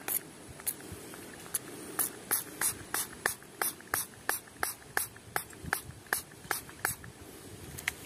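Hand spray bottle squirting in quick short bursts, about three a second, with a couple of brief pauses.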